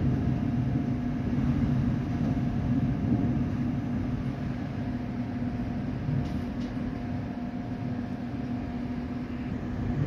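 Storm wind against a glass-walled building, heard from inside as a steady low rumble with a steady droning tone.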